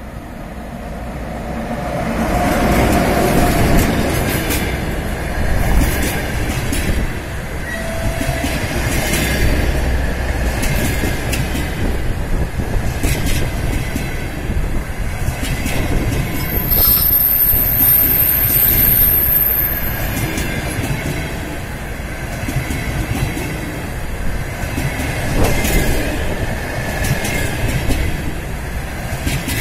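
ChS4 electric locomotive passing close by, followed by a long rake of passenger coaches rolling past with a steady rumble and wheels clicking over rail joints. The sound swells over the first few seconds as the locomotive draws level, and a thin high squeal comes in for about three seconds midway.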